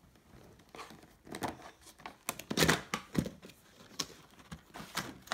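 Cardboard toy box being handled: irregular rustles, scrapes and knocks, starting about a second in.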